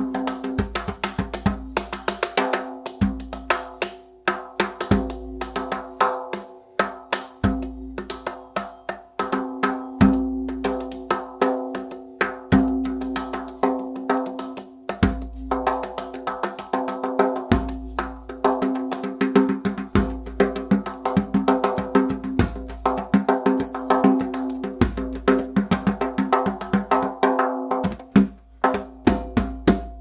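Hand drum with a Remo Fiberskyn head played with bare hands: quick, dense finger strokes over a deep bass stroke about every two and a half seconds, with the head's pitched ring carrying between strokes. The playing breaks off briefly near the end.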